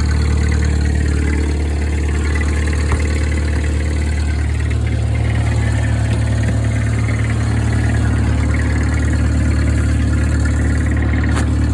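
IH 154 Cub Lo-Boy tractor engine running steadily, a low even hum with no change in speed.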